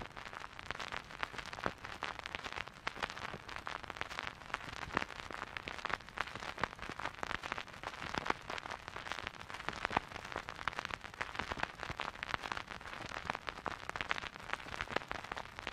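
Steady, irregular crackle of small clicks and pops, an old-film or record surface-noise effect laid under the title cards.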